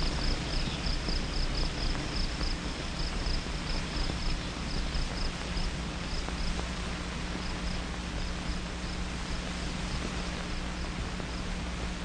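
Crickets chirping in a steady run of short, rapid pulses that thin out and stop near the end. Under them runs the hiss and steady low hum of an old 1950s film soundtrack.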